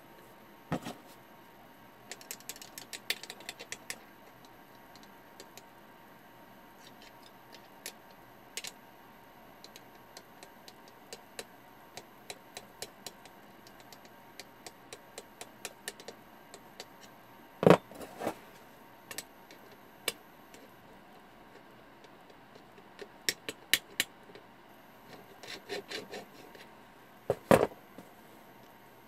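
Irregular small clicks, taps and light scraping, with a louder knock about two-thirds through and another near the end, like hands and wires being moved near the camera.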